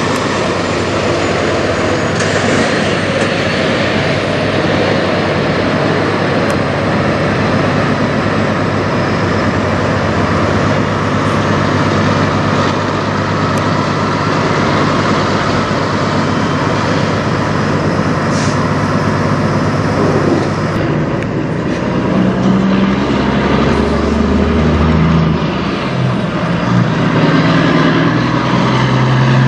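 Peterbilt semi truck's diesel engine running amid heavy road noise; about two-thirds of the way in, the low engine drone grows stronger and shifts in pitch.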